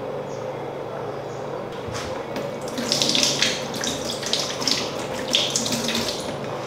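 Kitchen mixer tap running into the sink, with the water splashing unevenly about two seconds in as a hand is held under the stream.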